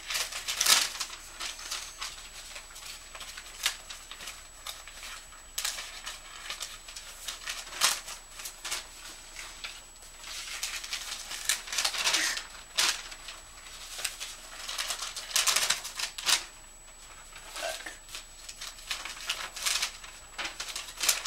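Paper rustling and shuffling as sheets of letters and envelopes are picked up, flipped through and sorted in piles, with irregular sharp swishes and crackles.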